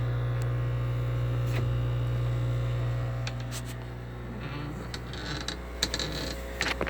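Aquarium air pump humming with a steady low buzz, easing a little about three seconds in. A few light clicks and knocks near the end.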